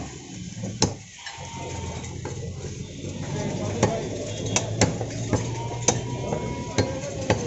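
Butcher's cleaver chopping through a goat head on a wooden chopping block: sharp, irregularly spaced blows, one about a second in and several more in the second half, over a steady background hum.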